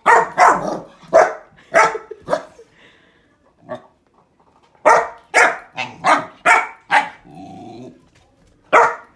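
A puppy barking at a grapefruit in bursts of sharp barks: about four in the first two seconds, then five in quick succession, with a short low growl after them and one last bark near the end.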